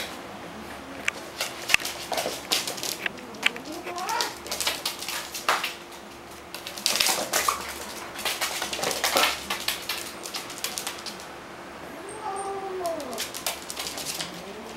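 A Welsh Corgi puppy and a cat in a plastic cone scuffling on a wooden floor: quick irregular clicks and taps of paws and claws on the boards, with a few short noisy bursts. Two short pitched animal cries, one about four seconds in and a falling one near the end.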